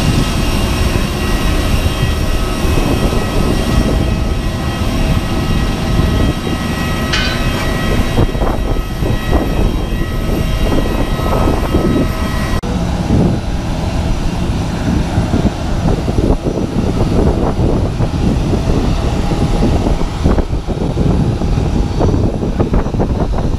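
Airport apron noise: a steady high whine of aircraft machinery over a loud, low rumble. The whine drops away suddenly about halfway through, leaving mostly the rumble.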